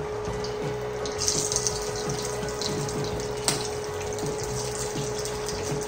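Hot oil sizzling and crackling in a frying pan as boiled eggs and spice-coated potatoes fry, the hiss getting louder about a second in, with one sharp click about three and a half seconds in.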